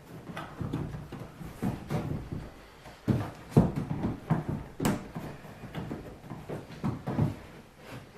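Hands working on the kayak's plastic rod tubes: irregular knocks, scrapes and clicks, with one sharp click about five seconds in.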